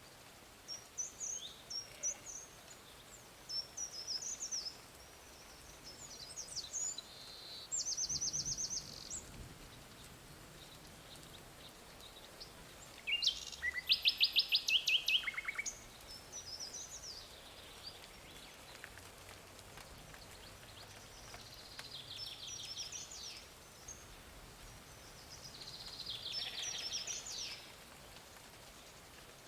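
Songbirds singing: scattered high chirps and several rapid trills of quickly repeated notes, the loudest trill about halfway through, over a steady background hiss.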